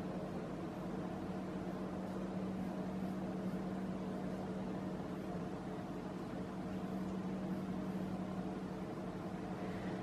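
Steady low mechanical hum over a faint even hiss: room tone.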